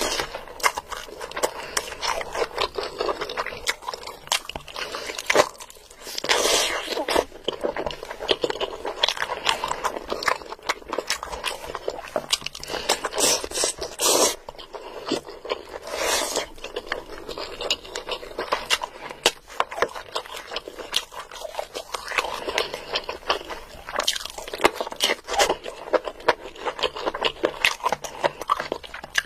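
Close-up eating sounds: a person chewing and biting mouthfuls of biryani and curry eaten by hand, a dense run of small clicks and crunches.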